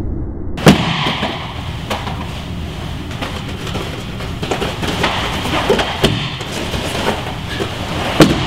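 A body slamming onto the grappling mat as a hip throw lands: one loud thud about a second in and another near the end, with a few lighter knocks between.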